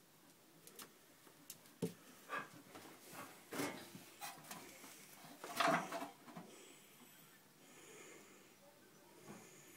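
Handling noise among plastic toys: a scatter of light clicks and knocks, with a louder cluster about six seconds in, then only faint room hiss.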